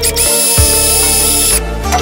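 Cordless driver's motor whining for about a second and a half as it drives a screw into a plastic outlet box, winding up at the start and down at the end. Background music plays throughout.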